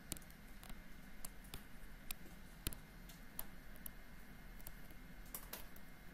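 Light, irregular clicks and taps of a stylus on a tablet screen during handwriting, over a faint steady hum.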